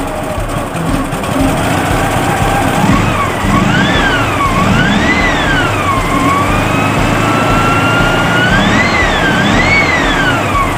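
Air-cooled VW flat-four engine being revved by hand at the carburettor. Its cooling fan gives a turbo-like whine that rises and falls with the revs, made by plates fitted inside the doghouse fan shroud. There are several quick rev blips and one slower, longer climb in the middle.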